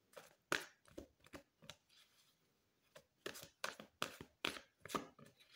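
A deck of tarot cards being shuffled by hand: a string of quick, papery card slaps and flicks, with a short lull about two seconds in.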